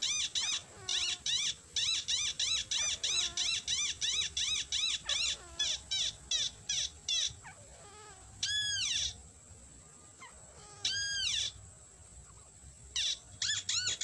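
A rail's lure call: a fast string of short, squeaky, arching notes, about three a second, that breaks off around seven seconds in. Two longer single calls follow, and the quick series starts again near the end, over a thin steady high whine.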